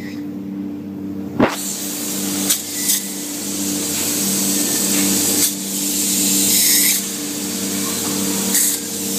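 Spray-foam insulation gun hissing as it sprays foam. The spraying starts with a click about a second and a half in and is briefly interrupted a few times, over a steady machine hum.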